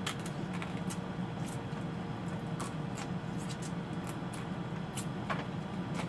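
Crabs being eaten by hand: scattered short cracks and clicks of shell being broken and picked, with mouth sounds of eating, over a steady low hum.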